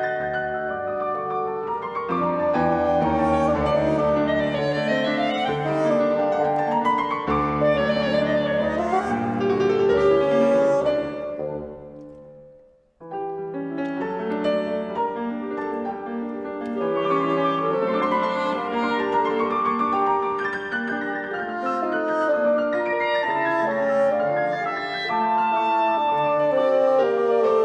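Clarinet, bassoon and piano trio playing classical chamber music. About halfway through, the music dies away to a brief silence and starts again, first with the piano while the clarinet rests, and then with the winds back in near the end.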